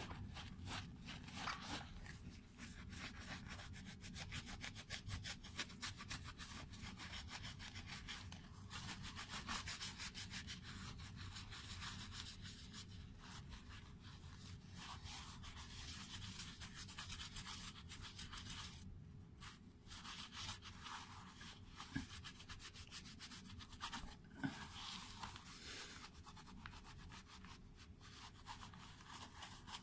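Microfiber cloth rubbing over a sneaker's upper, a faint, steady, scratchy rubbing made of many small strokes, wiping cleaning solution off the shoe.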